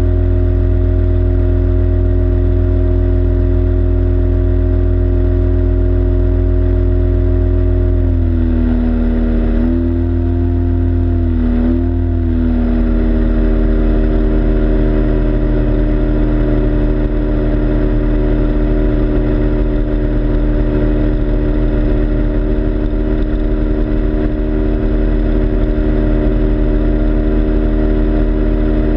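Yamaha outboard motor on a small RIB, running steadily at speed. About eight seconds in its pitch dips and wavers for a few seconds as the throttle is eased, then it settles slightly lower and runs steadily again.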